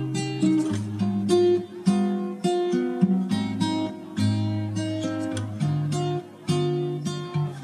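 Background music of plucked guitar, picking out a melody note by note, about two notes a second, each ringing and fading.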